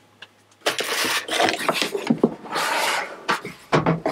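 A cardboard gift box being opened and the paper inside rustling, starting about a second in, with a few small clicks among the rustling.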